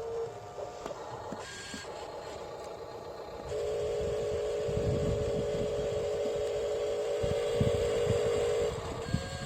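Small electric motor and gearing of a radio-controlled construction model running with a steady whine. It starts about a third of the way in and stops shortly before the end, over low rumbling and a few thumps.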